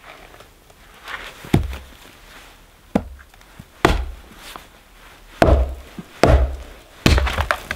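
Axe blows splitting a piece of dead, dry cedar: about six sharp chops with a dull thud, irregularly spaced, the last three heavier.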